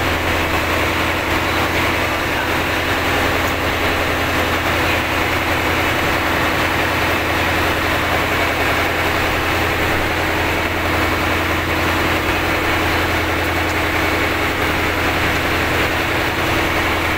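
Inboard engine of a fishing boat running at a steady pace with a low, unbroken drone while towing another vessel on a line.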